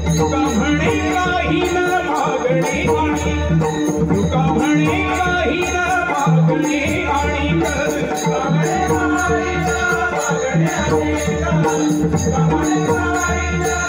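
Marathi bhajan ensemble playing: a pakhawaj drum and small brass hand cymbals (tal) keep a fast, steady rhythm under held harmonium-like tones and singing.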